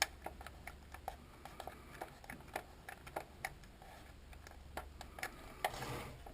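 Irregular light clicks and taps on a plastic climate control panel as vinyl button overlays are pressed down with the back end of tweezers, with a short brushing noise near the end.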